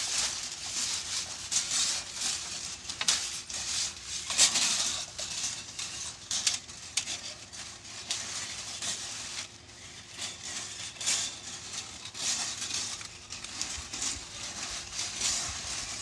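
A plumbing snake's cable is fed by hand up a chimney flue, with a chimney brush on its end, scraping and rattling against the flue and cleanout in irregular bursts.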